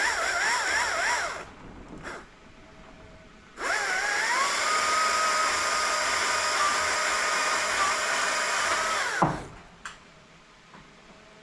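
Chainsaw cutting through a tree trunk. It runs at high revs with a wavering pitch until about a second and a half in, then stops. Three and a half seconds in it revs up again, holds a steady high pitch for about five seconds, and winds down.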